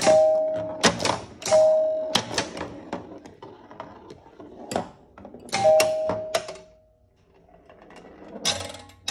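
1976 Chicago Coin Sound Stage electromechanical pinball machine in play: chime bells ring out three times amid clattering bursts of relay, bumper and score-reel clicks. It goes quiet about seven seconds in, then a low hum starts with more clicks near the end.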